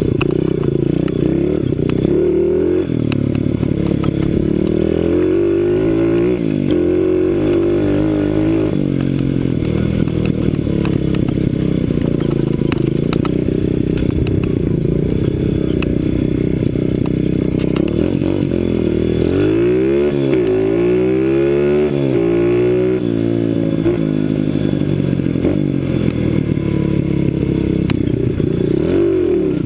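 CRZ 125 Pro pit bike's single-cylinder engine running under riding load, the revs repeatedly rising and falling, with a quick run of sharp rev climbs and drops about two-thirds of the way through.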